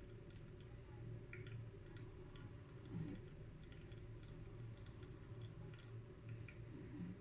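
Faint, irregular small clicks and ticks of coffee dripping from a V60 dripper into the server at the end of the drawdown, over a steady low room hum.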